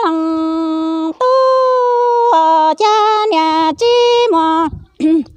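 A woman singing kwv txhiaj, Hmong traditional sung poetry, unaccompanied, in long held notes that step between pitches. The phrase ends with a falling note a little under five seconds in.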